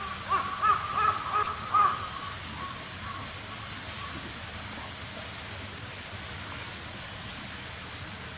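A bird calling, about five short harsh calls in quick succession in the first two seconds, then only a steady background hiss.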